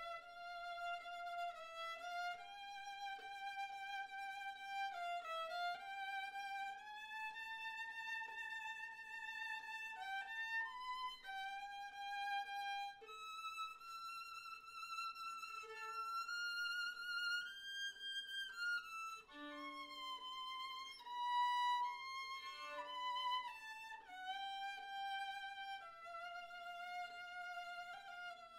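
Violin played with the bow: a slow melody of long held notes with vibrato, now and then two strings sounding together.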